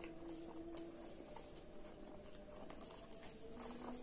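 Close-up eating sounds of instant fried noodles: soft slurps and wet mouth clicks as a forkful of noodles is sucked in and chewed. Faint and irregular.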